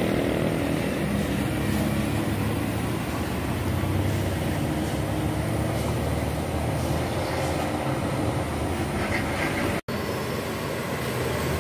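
Diesel bus engines running steadily as buses take a hairpin bend, with tyre and road noise: first a medium tour bus pulling away, then, after an instant's drop-out near the end, a larger coach approaching.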